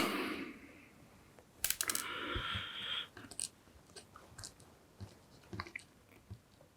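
Small-parts handling at a workbench: a sharp click, then about a second of scratchy crackling, followed by scattered light clicks and taps as a chip is set in place for soldering.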